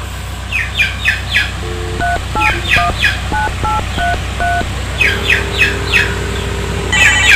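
Mobile phone keypad beeps as a number is dialled, about seven short two-tone beeps, followed by a steady ringback tone for about two seconds while the call connects; a phone ringtone starts right at the end. Birds chirp in quick repeated bursts throughout.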